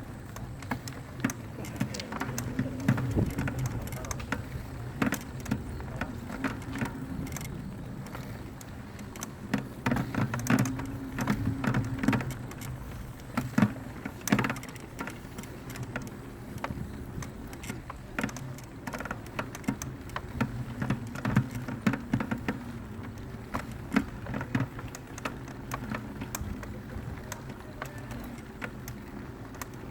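Mountain bike clattering and rattling as it rides down a rough dirt trail, with a steady rumble of tyres on the ground and many irregular sharp knocks from the bike jolting over rocks and roots.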